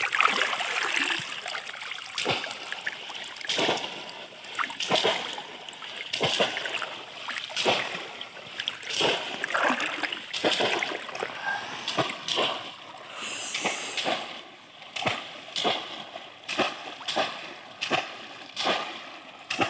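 Muddy floodwater splashing as bamboo plunge-basket fish traps are slammed down into it again and again, with water sloshing around wading legs; about one splash a second.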